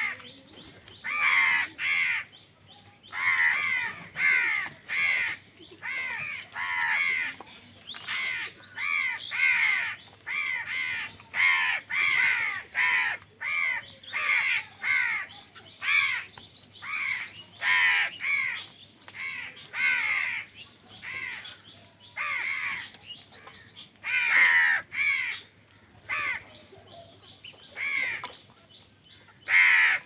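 A flock of house crows cawing over and over, short harsh caws coming about one or two a second and overlapping as several birds call.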